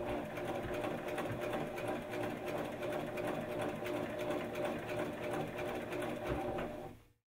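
Sewing machine running steadily at regular stitch length, sewing a line of stay stitching along a bodice neckline; it cuts off suddenly near the end.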